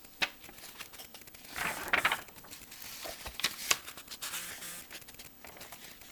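Paper pages of a bound operation manual being handled and turned: irregular rustling and crinkling, loudest about one and a half to two seconds in, with a few sharp clicks.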